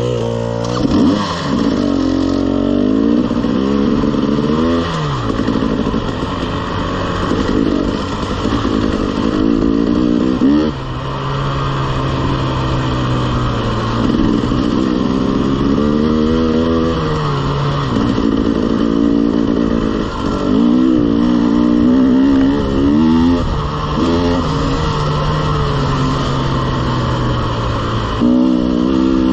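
KTM two-stroke enduro dirt bike engine pulling away and accelerating, its pitch repeatedly climbing under throttle and dropping back at each shift or easing off.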